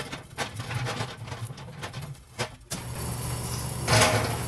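A stack of welded steel car wheels, a homemade wood stove, tipped onto its rim and rolled across a concrete floor. Irregular scrapes and knocks give way about three seconds in to a steadier rolling rumble of steel on concrete.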